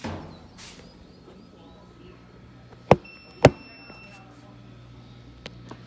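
Colormaq LCA12 washing machine running with a steady low hum, while it works through its cycle before the spin. About three seconds in come two sharp clacks half a second apart, the second followed by a brief high ringing tone.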